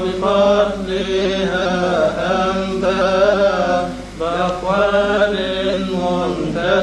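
A Coptic monk's solo voice chanting a madeeh hymn in drawn-out notes whose pitch wavers and bends, with a short break for breath about four seconds in.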